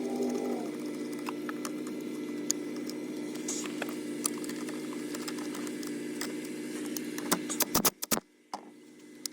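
Light clicks and taps of plastic trunk trim being handled and fitted over a car battery, with a few louder knocks near the end. A steady hum runs under them and cuts off suddenly after the knocks.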